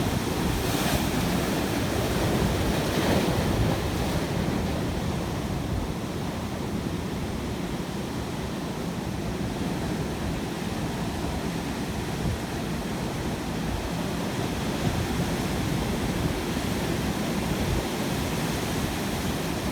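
Ocean surf: waves washing continuously onto the shore with a deep rumble underneath, and brighter hissing swells about one and three seconds in.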